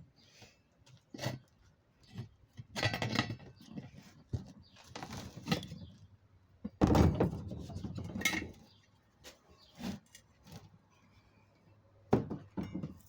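Screwdrivers prying and scraping at a lawn tractor tire's bead on its metal rim, with irregular clanks, knocks and rubbing as the tire is worked off. A louder clatter comes about seven seconds in.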